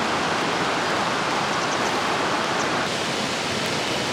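Steady rushing of water, an even wash of noise that eases slightly about three seconds in.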